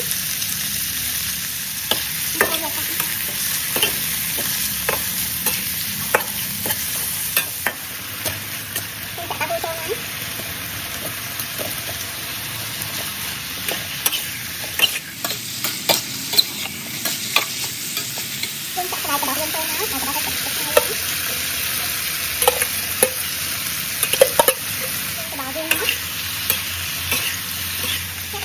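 Food sizzling in a hot metal wok while it is stir-fried with metal spatulas: a steady frying hiss with frequent scrapes and clacks of the utensils against the pan.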